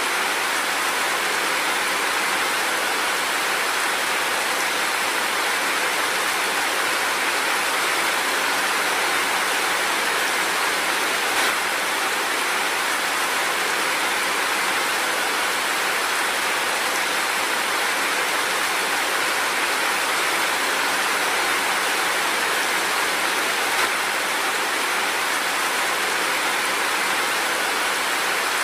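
Steady rain falling, an even hiss of water with no separate drops standing out.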